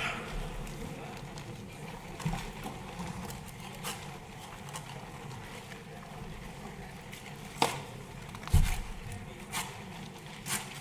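Steady background noise with a faint hum, broken by a few sharp clicks and one low thump about eight and a half seconds in.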